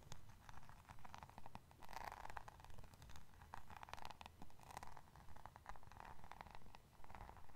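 Fingertips strumming the pins of a paddle hairbrush held right against a furry microphone windscreen: soft, repeated swishes with a patter of tiny clicks, about one stroke a second.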